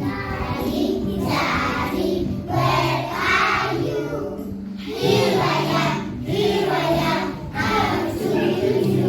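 A group of children singing together over an instrumental backing with a bass line moving from note to note.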